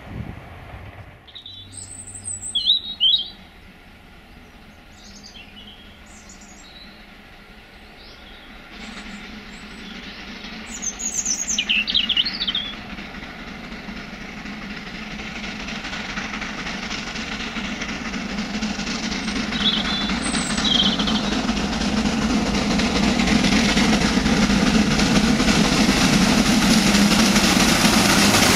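A steam locomotive hauling a train of carriages approaches, its running noise building steadily louder through the second half. Birds chirp in short calls over it.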